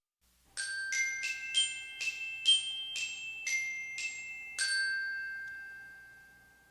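Short opening jingle of about ten struck, bell-like notes played as a quick melody. The last note rings on and slowly fades away.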